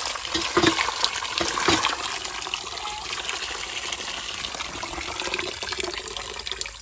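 Water from a hand pump's spout pouring steadily and splashing into a steel bowl of raw chicken pieces as they are washed.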